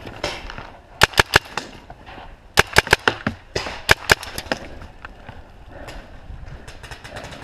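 Paintball markers firing in three quick bursts of sharp pops, about three shots, then four, then two, between about one and four seconds in.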